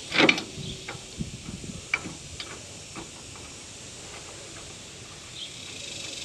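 A sudden knock at the start, then scattered light metal clicks as a brake caliper and its mounting bolt are handled and the bolt is started by hand, over a steady high hiss.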